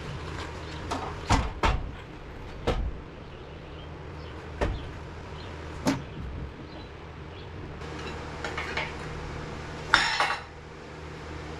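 Irregular metal clunks and knocks from parts bumping together as an engine is worked down into place, with several sharp single knocks and a short rattling clatter near the end, over a steady shop hum.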